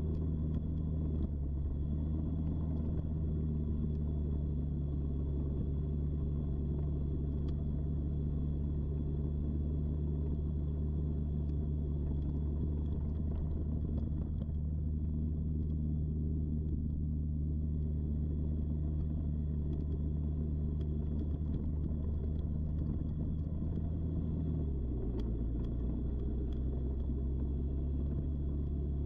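Quad bike (ATV) engine running steadily under way, its pitch dropping to a lower, steady note near the end.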